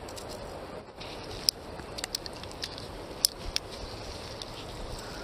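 Steady outdoor rush of river water and wind, broken by a handful of sharp, irregular clicks from a spinning reel and rod being handled, the loudest about one and a half and three seconds in.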